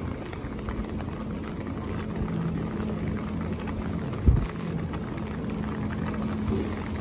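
Light rain pattering on an umbrella over a steady low hum, with one short low thump about four seconds in.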